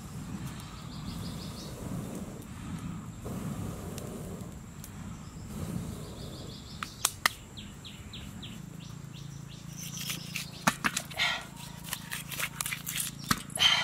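Small birds chirping in quick high series over a low rumble; then, from about ten seconds in, a run of sharp knife cuts as a bamboo shoot is sliced, pieces dropping into a metal wok.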